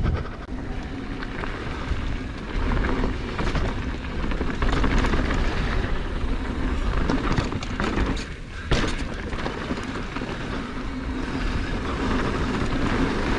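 Mountain bike rolling fast down a dirt trail: tyre roar, the frame and chain rattling over rough ground, and wind on the microphone, with many small clicks and a sharp knock about nine seconds in.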